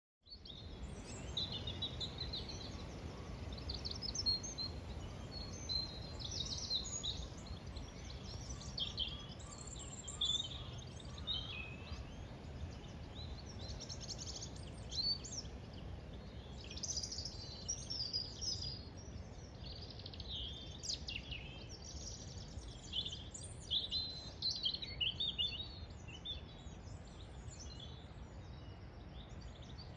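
Small birds singing and chirping in the trees, many short trills and chirps overlapping throughout, over a steady low rumble.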